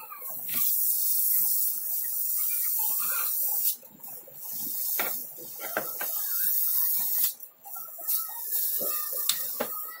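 Samsung inverter refrigerator compressor on the bench, run from its inverter board, with a loud hiss in two long stretches that breaks off about four seconds in and again about seven seconds in, and a few sharp clicks.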